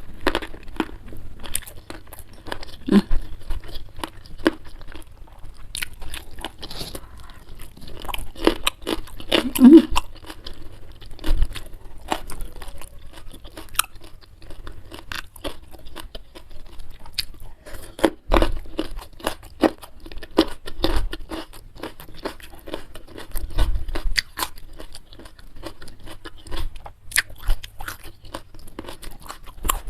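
Close-miked eating: chewing and crunching of a rice meal with many short, irregular crunches.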